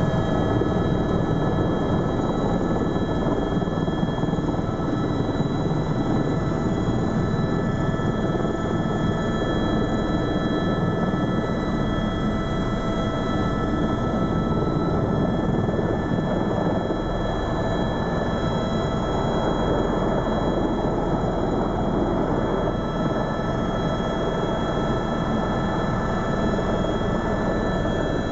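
Eurocopter EC130 Ecostar helicopter's turbine engine and rotor heard from inside the cabin, running steadily: a constant mix of rotor and engine noise with several steady high whines over it.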